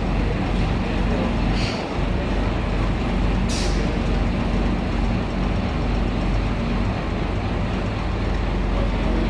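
Guy Arab LUF bus's diesel engine running steadily at low revs as the bus creeps slowly. Two short hisses of air break in, about two seconds apart.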